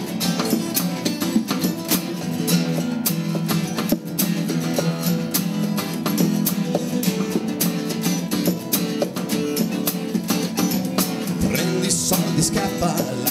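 Live acoustic band playing an instrumental passage: strummed steel-string acoustic guitars over an acoustic bass guitar and a drum kit keeping a steady beat, with more cymbal near the end.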